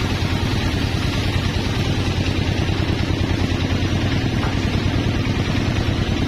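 Sawmill machinery engine running steadily at an even speed, a low, continuous throb that stays unchanged throughout.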